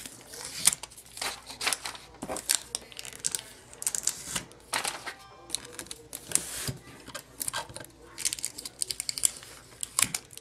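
Tape being peeled off a glass cutting board and crumpled, giving irregular crackling and crinkling.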